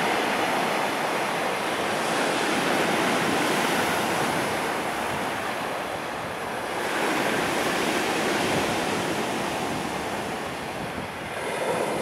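Surf of a slightly stormy sea breaking and washing up a pebble beach: a steady rush that swells and eases with the waves.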